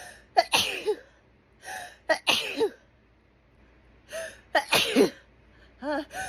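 A woman sneezing three times in a row, each sneeze led by a short voiced in-breath: an allergic sneezing fit brought on by hay fever.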